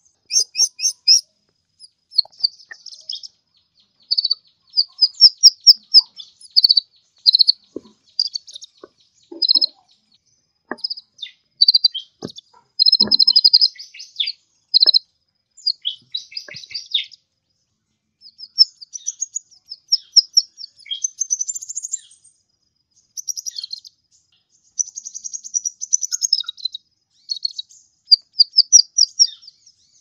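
Kolibri ninja (copper-throated sunbird) singing in lively, high-pitched bursts: short chirps and fast twittering trills repeated with brief pauses.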